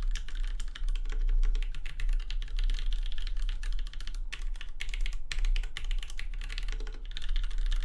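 Fast typing on a 40% ortholinear custom keyboard with Cherry MX Black linear switches in a polycarbonate case: a dense, continuous run of keystrokes with a couple of brief pauses midway.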